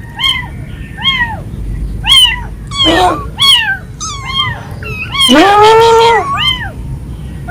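Several young kittens meowing again and again in short, high cries, some overlapping, with one longer, lower meow a little past the middle that is the loudest. These are the distress cries of kittens out of the nest and away from their mother.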